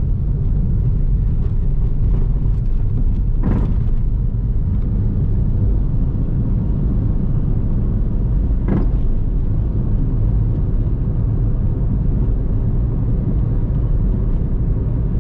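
Car riding along a road, heard from inside: a steady low rumble of engine and tyres, with two short knocks about three and a half and nine seconds in.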